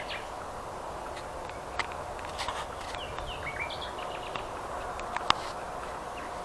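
Songbirds singing: short chirping phrases over a steady background hiss, with a few sharp clicks, the loudest about five seconds in.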